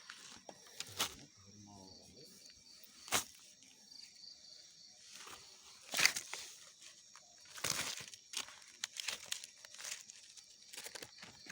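Night insects keep up a steady high chirring, with a faint pulsing trill under it, over repeated short crackling rustles, the loudest about three, six and eight seconds in. A brief low voice-like sound comes about two seconds in.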